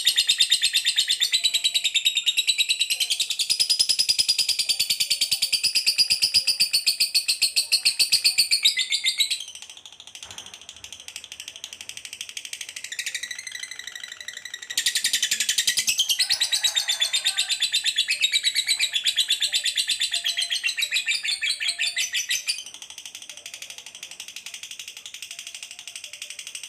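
Mixed songbird song of canary, lovebird and Eurasian tree sparrow: continuous rapid high-pitched trills and chatter. It drops quieter about nine seconds in, comes back loud about fifteen seconds in, and quietens again about twenty-two seconds in.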